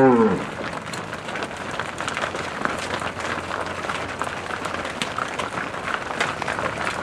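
A herd of cattle walking down a street: a steady, dense patter of many hooves. A cow's low moo trails off in the first moment.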